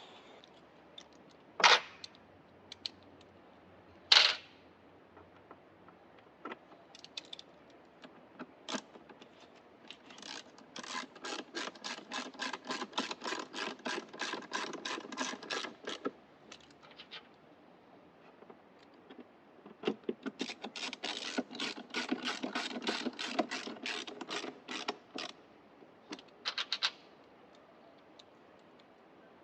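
Two sharp knocks, then two runs of rapid mechanical clicking, about five clicks a second, each lasting some six seconds, from tools at work on a car's wiper assembly.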